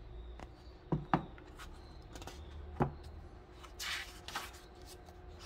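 Pages of a paperback book being turned by hand: a soft paper rustle a little under four seconds in and again shortly after, with a few faint clicks before it.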